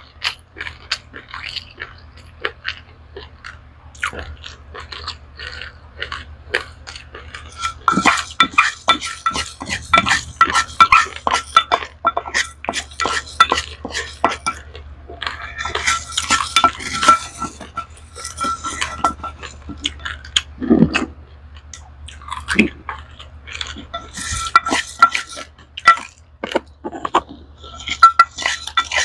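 Crunchy chewing of dry-roasted raw rice, alternating with stretches of a plastic rice ladle scraping and scooping the loose grains in a bowl, which gives a clattering sound with a ringing tone. A low hum runs underneath.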